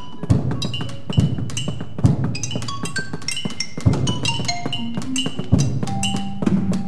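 Percussion ensemble playing: quick struck notes on mallet instruments ringing briefly over a low drum stroke every second or two.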